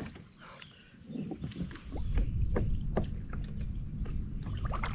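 Water sloshing against a plastic fishing kayak with a few light knocks on the hull, over a low steady rumble that comes in about two seconds in.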